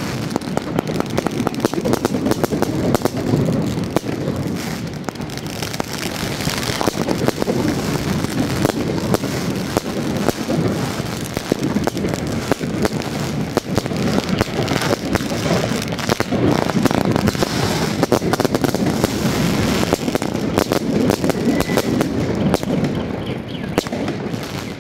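Fireworks and firecrackers going off in a dense, unbroken run of bangs and crackles.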